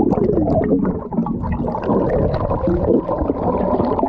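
Muffled underwater rumbling and gurgling as heard through an action camera's housing beneath the surface, with short wavering low tones running through it.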